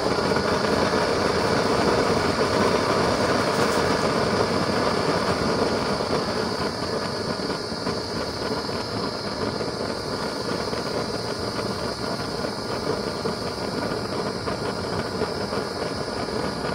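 Homemade blue-flame used-oil burner with a half-inch coupling-and-end-cap nozzle burning steadily with an even rushing noise, a little louder in the first few seconds. The maker finds this nozzle not noisy, quieter than a coupling with plug.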